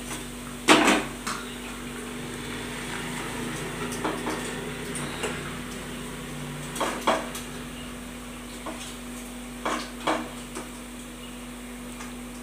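Metal slotted spoon clinking and scraping against steel cookware as deep-fried vegetable manchurian balls are scooped out of the oil: several sharp metal clinks, the loudest about a second in, with a few more in pairs later on. A steady low hum runs underneath.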